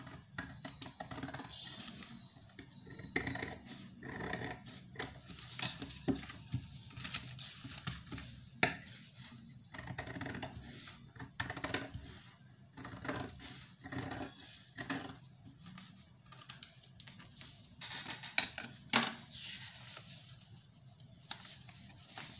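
Scissors cutting through a folded paper dress pattern: irregular snips and crisp paper rustling as the sheets are cut and turned, with a few sharper clicks of the blades and paper about two-thirds of the way through and near the end.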